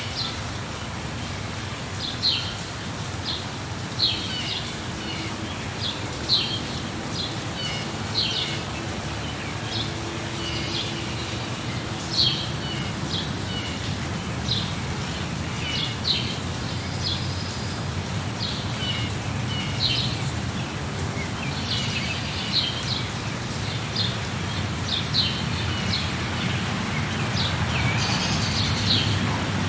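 Birds chirping, short high calls repeating about every one to two seconds, over a steady low background rumble.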